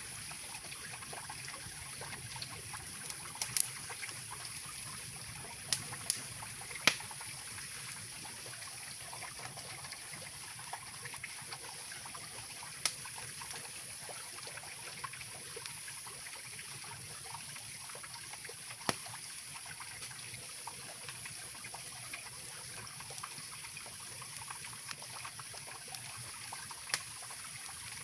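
Mountain river flowing steadily beneath a wood campfire, with several sharp pops from the burning wood scattered through.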